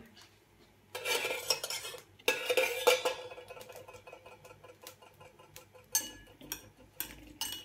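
Metal spoon and fork tossing a tomato and onion salad in a ceramic bowl, scraping and clinking against the bowl, with a run of sharp ringing clinks near the end.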